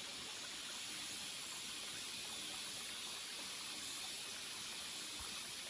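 Steady high hiss of forest background noise, even and unbroken, with no distinct events.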